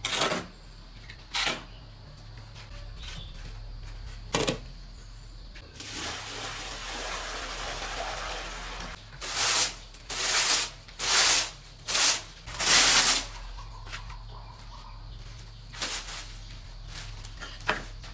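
Straw broom sweeping across a concrete floor: a run of about six quick, scratchy strokes in the middle, then two short ones near the end, with a few isolated clicks earlier.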